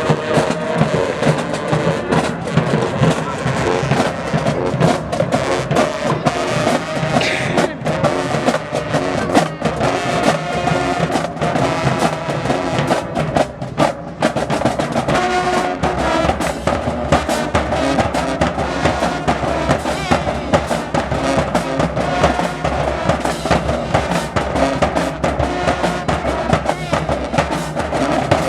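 High school marching band playing, with a drumline beating steadily under the melody.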